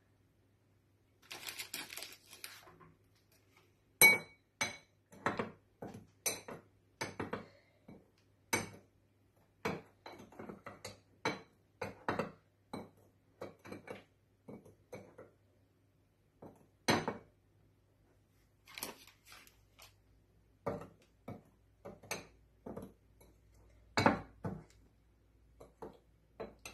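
A metal spoon clinking and scraping against a bowl while stirring cocoa, powdered sugar and melted butter into a paste, in short, irregular taps about one or two a second. A brief rustle of a bag comes near the start.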